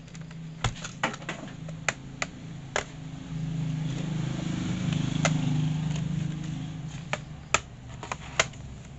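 A motorcycle engine going by, swelling from about three seconds in and fading away about a second before the end. Sharp plastic clicks of a laptop's bottom cover panel being pressed and snapped into place come throughout, the loudest two near the end.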